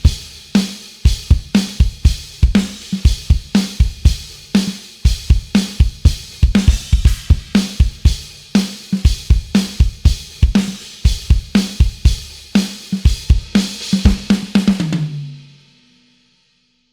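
Sampled gospel drum kit from the EZdrummer 3 Gospel EZX library playing a groove of kick, snare, hi-hat and cymbals. A quicker run of hits near the end rings out, and then it stops.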